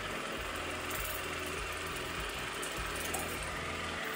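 Oral-B water flosser's motor and pump running steadily on its sensitive setting, spraying a constant stream of water into the mouth.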